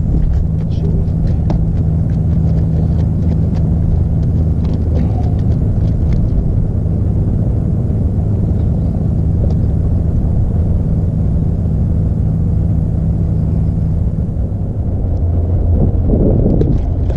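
A steady low motor hum with several fixed low pitches runs throughout, like an engine running at constant speed, with light clicks and taps during the first few seconds.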